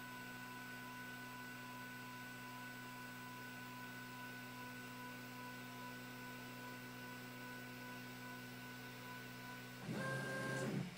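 Prusa i3 3D printer humming faintly and steadily, a few even tones. Near the end the sound shifts and gets a little louder as the print head moves off to its park position for the pause-at-height filament change.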